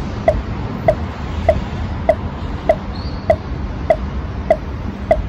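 Steady electronic ticking, like a timer or metronome, with one short pitched tick about every 0.6 seconds over a low steady hum.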